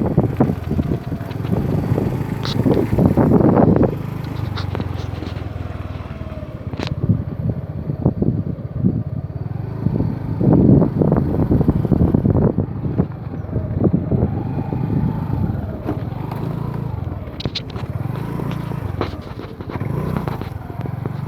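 Motor vehicle engines running, their pitch rising and falling as they rev or pass, over a steady rumble of traffic.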